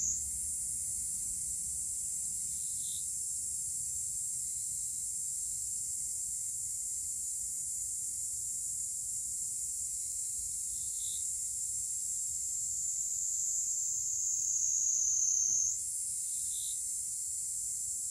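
Steady, high-pitched insect chorus, swelling a little and then dropping back suddenly near the end. Three faint short chirps sound over it.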